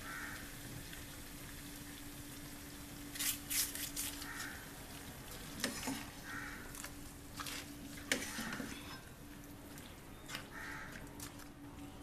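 A metal spoon and spatula clinking and scraping against a pan as spices are worked into raw duck meat and onions, in a few quiet bursts over a steady low hum. A short call recurs about every two seconds in the background.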